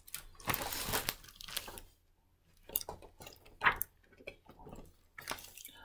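Pages of a hardcover picture book being handled and turned: paper rustling for about a second, then a few separate sharp clicks and taps.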